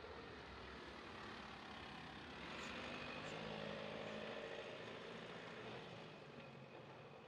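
Mercedes-Benz X-Class pickup's 2.3-litre four-cylinder turbo diesel pulling it slowly up a rocky dirt trail. It grows louder about a third of the way in and fades as the truck climbs away, with a couple of faint stone clicks under the tyres.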